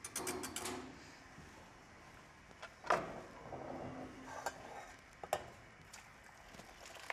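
Stainless-steel cookware clinking and knocking as a conical chinois strainer and saucepans are handled and set down: a quick rattle of clicks at the start, one sharp knock about three seconds in, and a couple of lighter knocks after.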